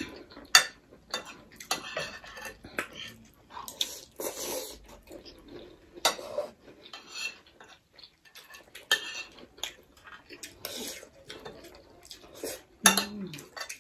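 Spoons clinking and scraping against dinner plates while eating, in irregular clicks and short scrapes.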